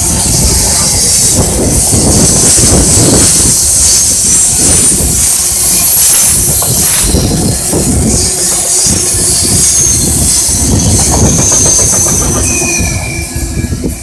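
Freight train cars rolling past at close range: steel wheels clacking over rail joints, with high-pitched wheel squeal drifting in and out. The sound drops away near the end as the rear of the train goes by.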